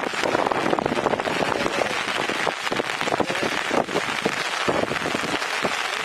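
Steady rain falling on a surface, a dense crackle of many separate drop impacts.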